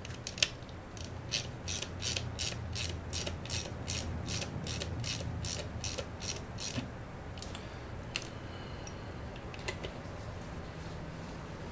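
Hand ratchet clicking steadily on its back-strokes, about three clicks a second for some five seconds, as fasteners on an outboard V6 powerhead are run down. There is a sharper single click just before, and only a few faint ticks after it stops.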